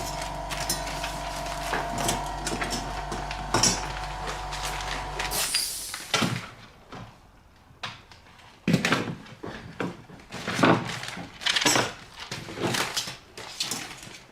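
Continuous band sealer running with a steady motor hum, which stops suddenly about five seconds in with a brief hiss. Afterwards come a series of separate clinks and knocks of metal tools and parts being handled.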